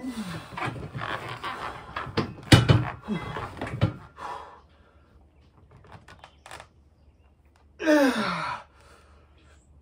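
A man breathing hard and groaning with strain while curling a dumbbell to failure. There is a loud thunk of the dumbbell about two and a half seconds in, and one sharp groan that falls in pitch near the end.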